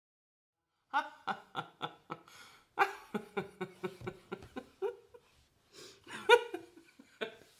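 Silence for about a second, then a woman laughing heartily in quick rhythmic bursts of about three or four a second, a short lull, and a second run of laughter.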